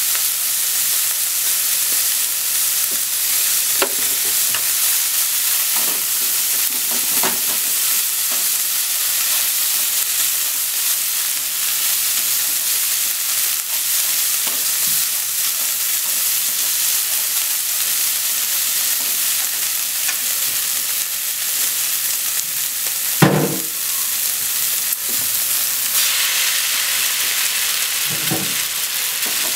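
Sliced negi and onion sizzling steadily in a hot frying pan while being stirred with wooden chopsticks, with a few light knocks of the chopsticks on the pan. One louder thump comes late on, where the boiled spaghetti goes into the pan.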